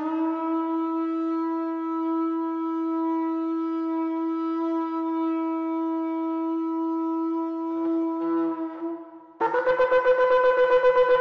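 Shofar sounded in one long, steady held note lasting about nine seconds. After a short break it is followed by a louder, higher blast that wavers rapidly in loudness.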